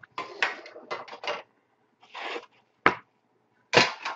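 A sealed trading-card box and its wrapping being handled and opened: rasping, scraping rubs of cardboard and plastic, then two sharp knocks about three and four seconds in.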